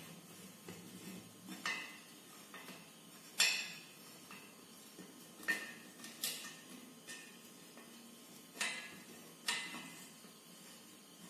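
Metal-on-metal clinks and taps as a valve spring compressor is positioned and worked on a finned aluminium motorcycle cylinder head: about six sharp, irregularly spaced clinks, the loudest about three and a half seconds in.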